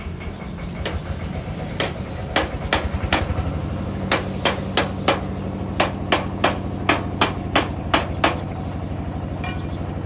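A series of sharp knocks over a steady low hum. The knocks are irregular at first, then come about three a second for a few seconds.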